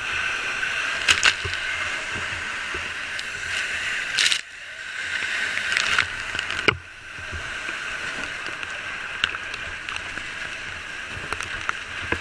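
Fire hose nozzle spraying water into a burning house: a steady hiss and splash of the water stream with scattered crackles and clicks. The spray drops off sharply twice, about four and a half and nearly seven seconds in, and builds back up each time.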